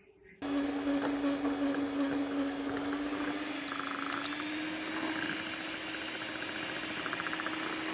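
Electric hand mixer running steadily, its beaters whirring through thick chocolate cake batter. It starts about half a second in, and its hum rises slightly in pitch about halfway through.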